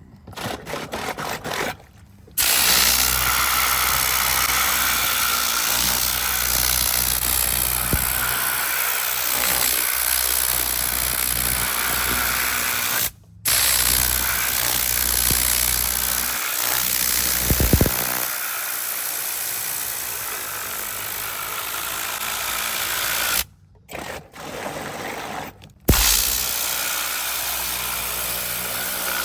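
A motor-driven machine running steadily with a loud hiss and a low hum, cut off and restarted abruptly several times.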